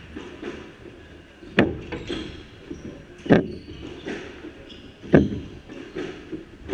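Squash rally: three loud sharp cracks of the ball being struck and hitting the walls, about one every two seconds. Between the shots come short high squeaks of court shoes and scuffing footfalls on the wooden floor.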